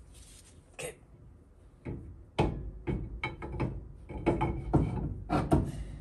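Rear axle shaft being worked into a Ford 9-inch axle housing by hand: a string of irregular metal knocks and clunks, a few at first and then many close together over the last few seconds.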